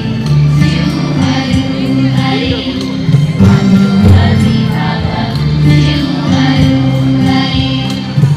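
A group of schoolchildren singing together as a choir over instrumental music, with held notes and no breaks.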